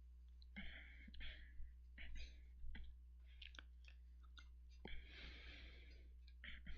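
Faint close-up breathing noises and scattered small clicks over a steady low electrical hum.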